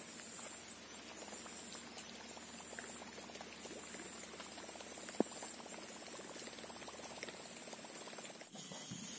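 Swamp ambience: a steady high-pitched insect drone over dense faint crackling, with one sharp click about five seconds in. The drone stops short near the end.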